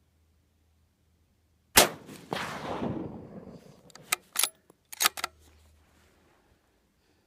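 A single shot from a Savage 10FP bolt-action rifle in .223 Remington, a sharp crack followed by a rolling echo that dies away over about two seconds. A couple of seconds later the bolt is worked, making a few sharp metallic clicks.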